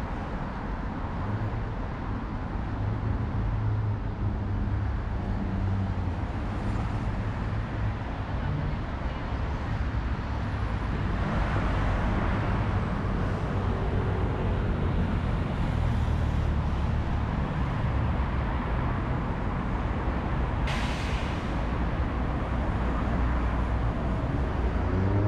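Steady city traffic: cars and buses running along a busy boulevard with a continuous low engine rumble. A vehicle passes close about halfway through, and there is a short hiss a few seconds later.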